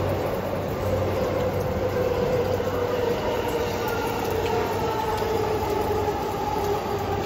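Keihin-Tōhoku line electric commuter train running past on the adjacent track, its motors giving a whine that slowly falls in pitch over the noise of the wheels on the rails.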